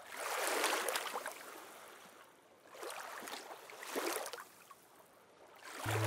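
Soft ocean waves washing in and drawing back: one longer swell, then two shorter ones around three and four seconds in.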